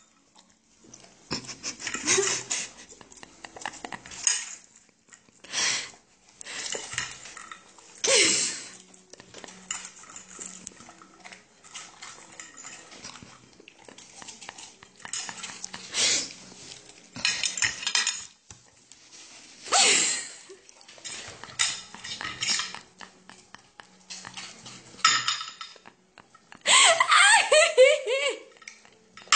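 A metal fork and spoon clink and scrape against a ceramic dinner plate in irregular bursts. A louder wavering pitched sound comes in during the last few seconds.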